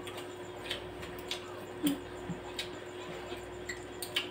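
Mouth and hand sounds of eating crispy fried chicken: scattered small smacks and clicks of chewing and handling the chicken, over a steady hum.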